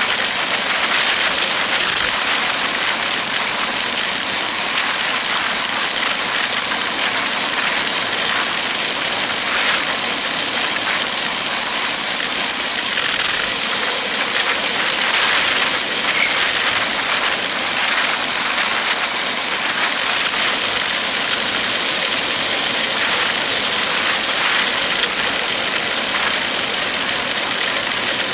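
Steady rushing hiss of road noise heard from a camera on a moving road bicycle: the bike's tyres rolling on asphalt, with traffic going by on the highway.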